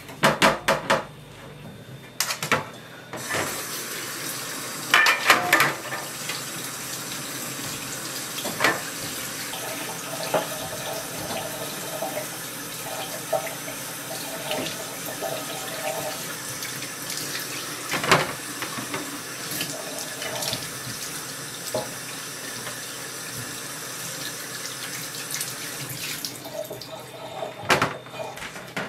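Kitchen tap running steadily into a stainless-steel sink as raw ducks are rinsed under it, with occasional knocks from handling in the sink and a flurry of them near the start.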